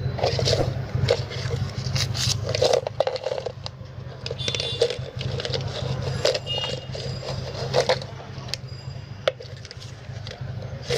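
Tools and small metal parts clinking, knocking and scraping on a work surface while a table fan and its capacitor are worked on. It comes as a run of short, irregular clicks and clatters, some briefly ringing, over a steady low hum.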